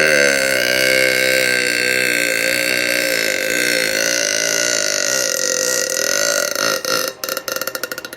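A woman's very long, deliberate belch, held at a fairly steady pitch for several seconds. Near the end it breaks into a rapid, rattling croak and then stops.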